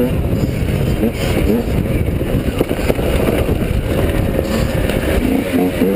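Enduro dirt bike's engine running under way, its revs rising and falling as it is ridden over a rough trail, heard from a helmet-mounted camera with a heavy, rough rumble underneath.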